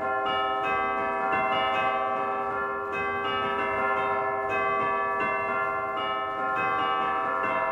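Several church bells ringing together in a continuous peal, about three strikes a second, each new stroke sounding over the still-ringing tones of the others.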